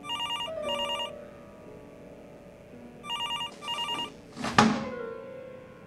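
Telephone ringing in pairs of short electronic rings, two pairs about three seconds apart. A loud thump about four and a half seconds in.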